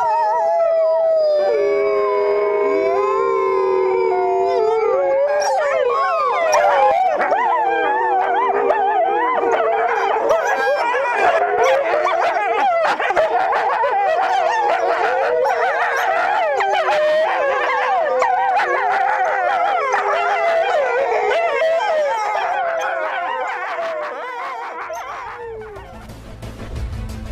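A pack of wolves howling in chorus. A few long, steady howls come first; from about five seconds in, many more voices join, wavering and yipping over one another. The chorus fades out shortly before the end.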